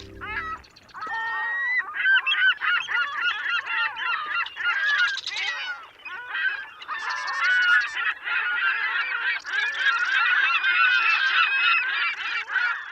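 A flock of birds calling together, many overlapping honking calls in a dense, continuous chorus that begins about a second in.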